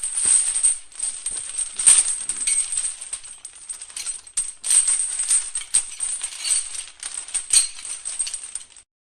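Metal chain links rubbing and scraping against each other in a dense, jangling rattle of small clinks, with the loudest clank about two seconds in. It stops shortly before the end.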